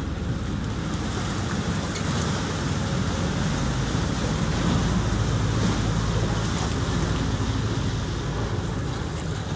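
Small motorboat's engine running steadily under way, with water rushing along the hull and wind on the microphone; it swells a little around the middle.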